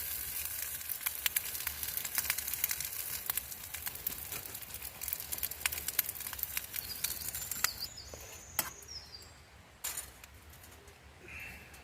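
Wood campfire crackling, with many sharp pops over a faint hiss, thinning out to a few pops after about eight seconds.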